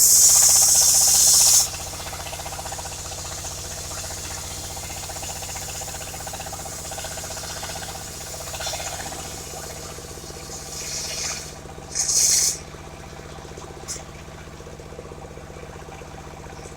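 Engine-driven circular sawmill running steadily, with a loud hiss for the first second and a half and another short hiss about twelve seconds in.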